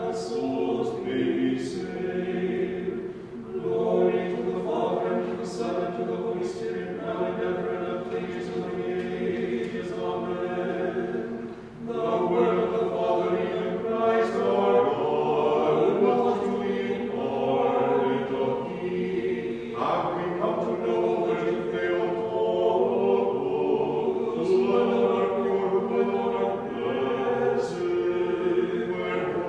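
Choir singing Orthodox liturgical chant a cappella in long, sustained phrases, with brief pauses between them.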